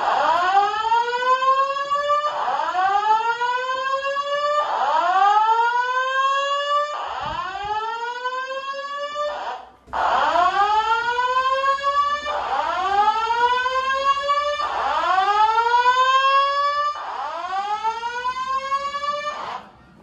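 Simplex voice-evacuation fire alarm ceiling speakers sounding the whoop alert tone, eight rising sweeps about two and a half seconds apart, with a short break about halfway.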